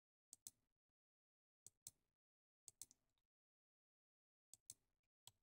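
Near silence broken by faint computer mouse clicks, coming in quick pairs five times, as supports are placed one by one by hand in the slicer software.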